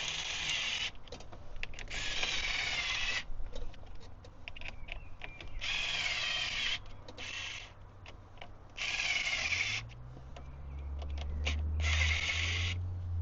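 A power drill/driver runs in about six short bursts, roughly a second each with pauses between, driving in the bolts of a handbrake extender. A low steady hum comes in about ten seconds in.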